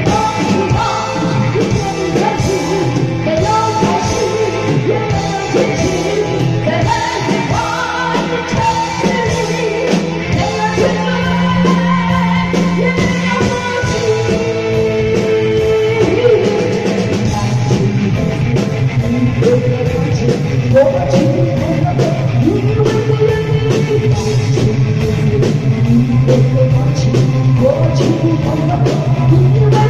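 A woman singing an enka-style song into a microphone, backed by live band music with guitar and keyboard and a steady beat.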